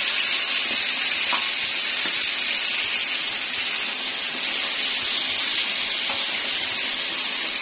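Marinated fish pieces frying in oil in a kadhai on full flame: a steady sizzle with a few faint clicks.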